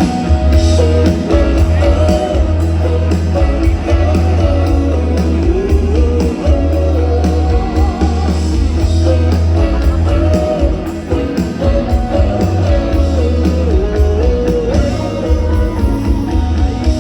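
Live band music with a heavy, steady bass and a melodic lead line weaving above it.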